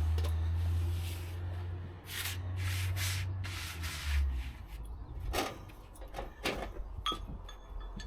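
Hand tools working metal hardware out of old oak beams: a few rubbing, scraping strokes, then separate knocks and a sharp clink that rings briefly near the end. A low hum runs under the first half and stops about four seconds in.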